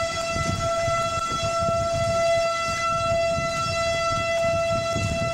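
Tornado warning siren sounding one steady tone that holds its pitch, over a rough low background noise.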